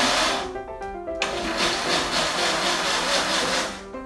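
Countertop blender running, puréeing chopped watermelon into juice; the motor noise cuts out briefly about half a second in and again just before the end. Background music plays underneath.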